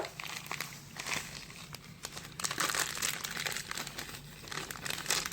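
Crinkling and small crackling clicks of something being handled, thickest in the middle of the stretch.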